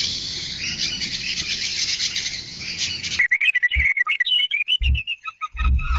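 Birds chirping: a dense chorus of many overlapping chirps, cut off about three seconds in by a different recording of one bird's quick repeated chirps, broken by a few low thumps.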